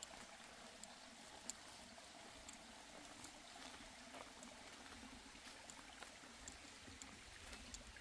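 Faint steady rush of a mountain stream, with scattered light ticks over it.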